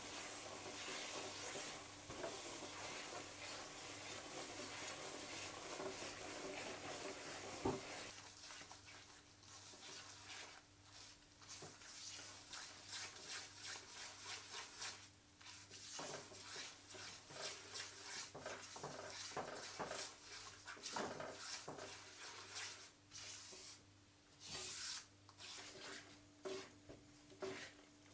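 A spatula stirring and scraping thick besan halwa paste, with khoya being mixed in, around a nonstick pan over low heat. A soft, steady hiss gives way about eight seconds in to separate, irregular scraping strokes, over a faint steady hum.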